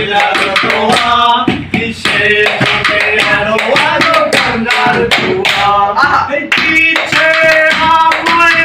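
A man singing a Bengali song to quick, steady tapping on a metal tin and a plastic bowl played as improvised hand drums.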